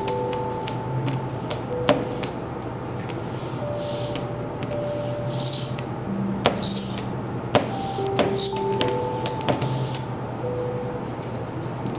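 Hand brayer rolling out black relief printing ink on an inking slab: a crackly, Velcro-like tearing sound in about four passes, from about three and a half to eight seconds in. That sound is the sign the ink is rolled to the correct thickness. Soft background music with held notes plays throughout.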